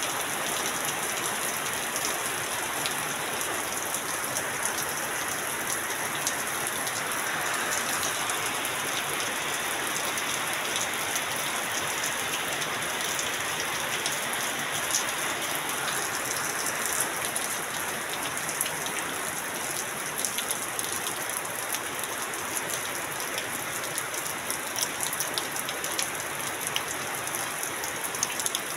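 Heavy rain falling steadily on a corrugated sheet roof and dripping off its edge, with many small sharp drop impacts.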